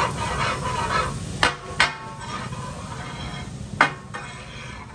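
Metal spatulas striking a large iron tawa in katakat cooking: three sharp ringing clanks, two close together about a second and a half in and one more near four seconds, over a frying sizzle that fades after about a second.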